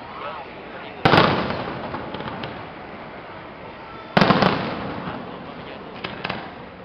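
Aerial firework shells bursting: two loud booms about three seconds apart, each rolling away in a long echo, with a few fainter pops in between.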